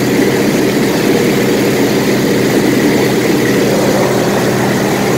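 Single-engine propeller light aircraft in flight, heard from inside the cockpit: a steady engine and propeller drone under a constant rush of air.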